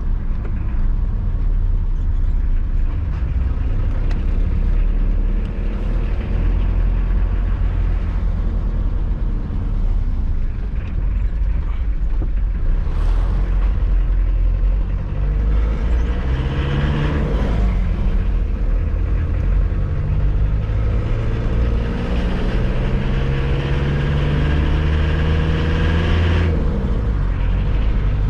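Mitsubishi L200's freshly rebuilt 4D56 diesel engine running under way, still being run in, over a steady road rumble. The engine note climbs briefly about two-thirds of the way in, then climbs again near the end before dropping away suddenly.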